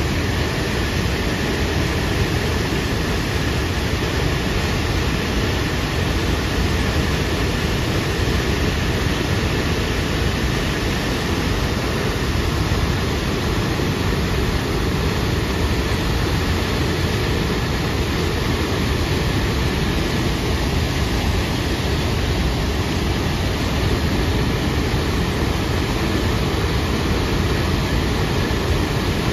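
The Upper Falls of Tahquamenon Falls, a wide waterfall, pouring over its ledge in a deep, steady rush of water.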